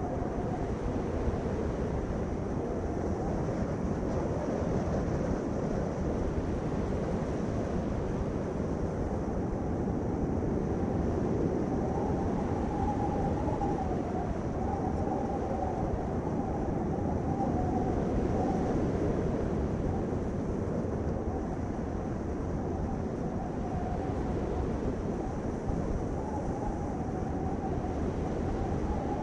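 Steady low rumbling noise of a vehicle on the move, with a faint wavering tone above it.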